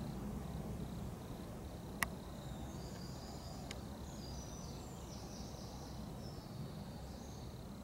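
Faint outdoor background: a steady low rumble, with one sharp click about two seconds in. Faint high-pitched chirping comes in about two and a half seconds in and runs until near the end.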